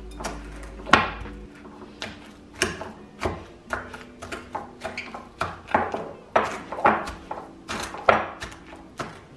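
A kitchen utensil knocking and scraping against a dish with irregular sharp clacks, about one or two a second, as firm ice cream mixed with Grape-Nuts is worked and packed into its container.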